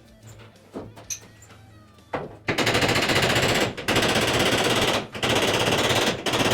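Fast, even metalworking rattle in four bursts of about a second each, with short breaks between.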